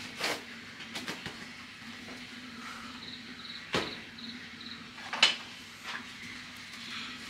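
Scattered sharp knocks and clatters of things being handled, the loudest a bit after five seconds in, over a faint steady low hum. A short run of quick high chirps comes about three seconds in.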